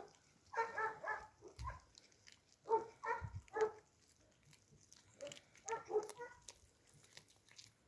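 A cat vocalizing in three short bouts of mid-pitched calls, each made of three or four quick pulses.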